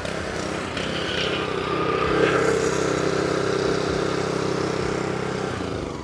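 Honda-engined 3200 psi gas pressure washer running steadily under load, with the hiss of its spray. It fades away near the end.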